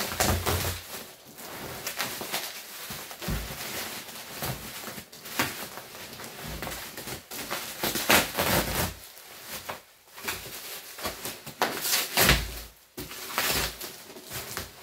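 Bubble wrap and plastic packing rustling and crinkling as it is pulled and pushed around inside a cardboard box, in uneven bursts, with a few dull knocks.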